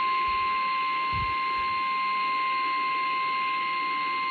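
NOAA Weather Radio warning alarm tone: one steady, unbroken high-pitched tone over radio hiss, the signal that a warning message is about to be broadcast.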